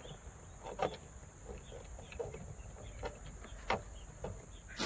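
Light handling sounds: a few short clicks and knocks amid faint rustling as small parts and accessories are picked up and set down.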